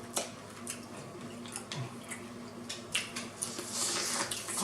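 Eating sounds from a seafood boil: wet chewing and squishing with small sharp clicks of shells being handled and broken, and a brief hiss about three and a half seconds in.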